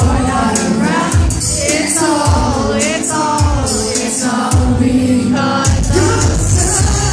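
Live pop music: a male singer sings into a microphone over an amplified band, with a strong bass beat about once a second and a fuller, steady low end near the end.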